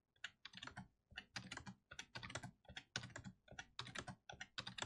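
Faint typing on a computer keyboard: quick, irregular keystrokes, several a second.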